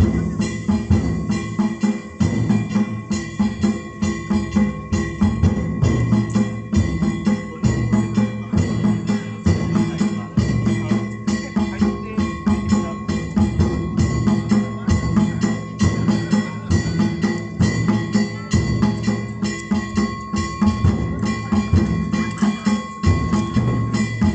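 Japanese festival percussion music: drums and metal gongs struck in a fast, even rhythm, with steady high tones held over the beat.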